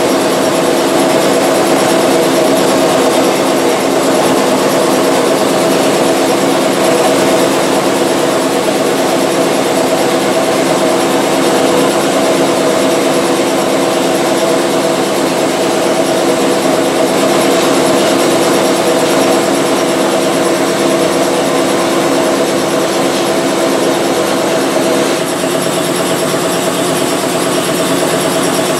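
Vapor blasting cabinet running: the steady hiss of the wet blast spray striking brake caliper parts, over the steady hum of the machine's motor. The sound eases slightly about 25 seconds in.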